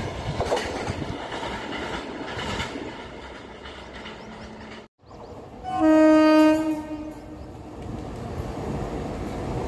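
The tail of a passing passenger train clatters away and fades over the first few seconds. After a break, an approaching Indian Railways electric locomotive sounds its horn in one blast of about a second, the loudest sound here, and then the rumble of the oncoming train slowly grows.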